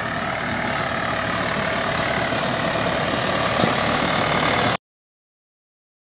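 Farm tractor engine running steadily as it tows an air-blast orchard sprayer, growing slightly louder, then cutting off abruptly just before five seconds in, followed by silence.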